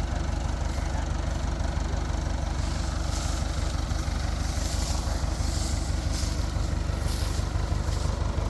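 Combine harvester engine running steadily with a deep drone, with several short washes of rustling hiss coming and going between about three and seven seconds in.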